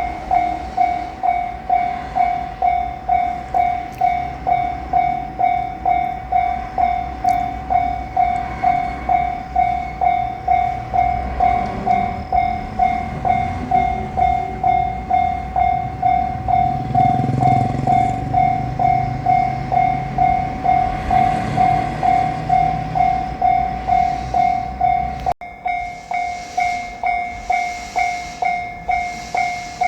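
Japanese railroad crossing alarm ringing its steady 'kan-kan' bell tone, about two strokes a second. In the middle a passing train's rumble swells and fades under it. The sound cuts out for an instant near the end, then the ringing carries on.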